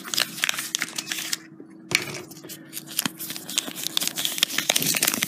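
Folded paper leaflet crinkling and rustling in the fingers as it is unfolded, in irregular crackles with a short pause about a second and a half in.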